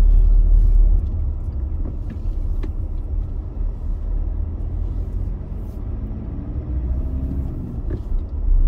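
Car engine and tyre rumble heard from inside the cabin while driving slowly through a turn. It drops quieter after about a second and rises again near the end.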